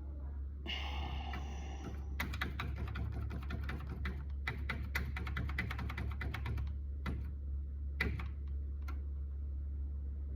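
Electric typewriter typing: a fast run of sharp key strikes for several seconds, then a few single strikes, over the machine's steady low motor hum. A short pitched whine sounds about a second in.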